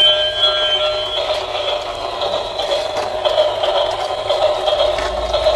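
Battery-powered toy train engine running across a tiled floor. Its electronic sound effect beeps in steady tones until about a second in, then gives way to a rattling clatter as it carries on running.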